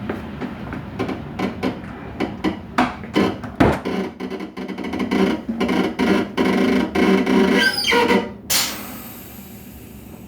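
Train coupling at work: a run of irregular metallic clanks and clicks, a rising whine about eight seconds in, then a sudden burst of air hiss that fades away.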